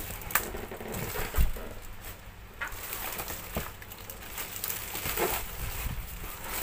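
Cardboard being handled and pushed aside: irregular rustling and scraping with scattered light knocks, and a dull thump about a second and a half in.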